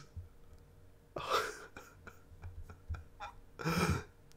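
A man's soft breathy laughter: a short exhaled chuckle about a second in and a brief voiced one near the end, with a few faint clicks in between.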